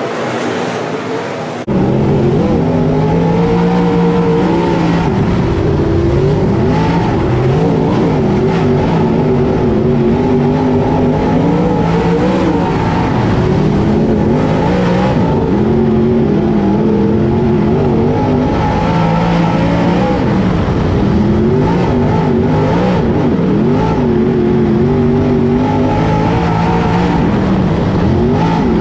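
Dirt late model race car's V8 engine heard from inside the car at racing speed. Its pitch rises and falls every few seconds as the car accelerates and lifts through the turns, over a steady rush of noise. The sound cuts in suddenly, louder, about two seconds in.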